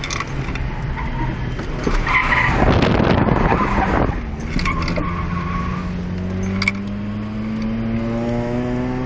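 Toyota Tercel's four-cylinder engine and tyres, heard from inside the car while it is drifted. The tyres screech for about two seconds, starting about two seconds in, then the engine note climbs steadily as the car accelerates out of the slide.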